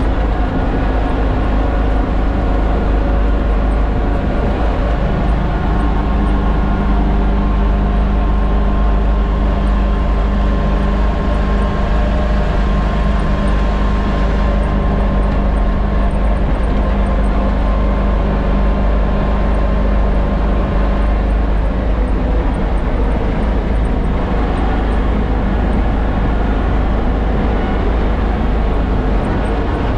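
John Deere X729 tractor's three-cylinder diesel engine running steadily, heard from inside its enclosed cab while the tractor pushes snow with its front blade. The engine note shifts slightly a few seconds in and again about two-thirds of the way through.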